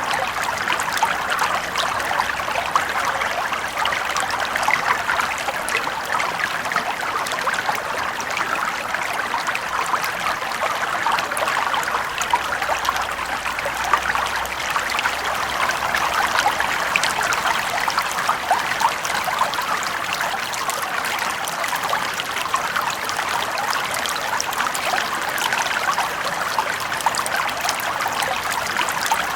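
Small brook flowing steadily over stones, with a constant babble of small ripples and splashes.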